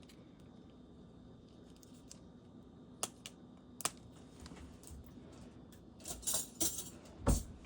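Fingers picking at and peeling the paper wrapping off a small toy egg: a few scattered small clicks and scratches, then a short burst of crinkling and tearing paper near the end with a light knock.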